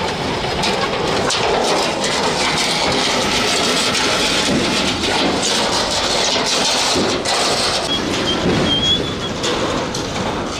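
Rusted metal roofing sheets and beams scraping and clattering as they are dragged over rubble and rough paving, a continuous grinding rattle with many small knocks.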